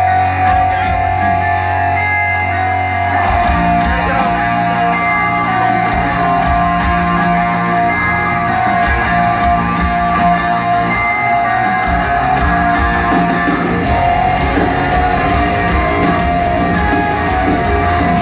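Hard rock band playing live through an arena PA, heard from the audience: a held guitar tone, then the full band comes in with heavy low end about three seconds in.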